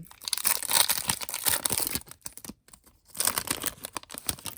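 Foil Pokémon TCG booster pack wrapper crinkling as it is handled and torn open, in two bouts: one from the start for about two seconds, another from about three seconds in.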